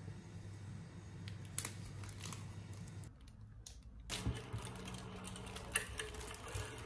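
Faint crinkling of a thin plastic bag around a piece of bread as it is handled, with scattered light clicks; it goes quieter for about a second roughly three seconds in.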